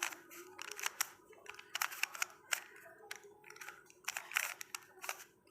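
Plastic Rubik's cube being turned by hand: a string of irregular clicks and clacks as its layers snap round.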